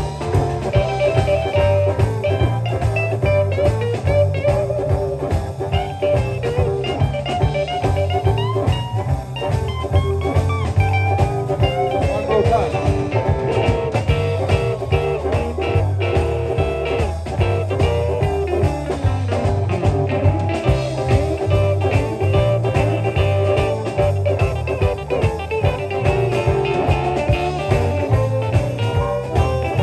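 Live electric blues band playing an instrumental break: amplified harmonica soloing over electric guitars, electric bass and drums keeping a steady beat.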